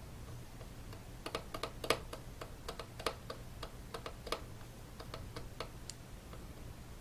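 Irregular light clicks and taps of small metal and plastic parts as an M.2 SSD and its tiny retaining screw are fitted by hand and small screwdriver inside a mini PC's case. Some clicks are sharper than others, over a faint low hum.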